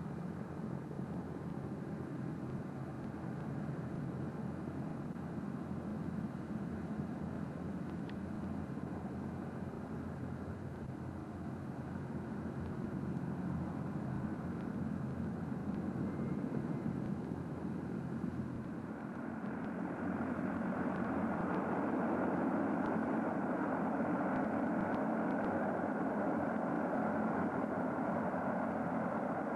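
SR.N4 hovercraft's gas turbines and four propellers running as the craft approaches over the water. The noise is a steady rush that grows louder and brighter about two-thirds of the way in as it nears.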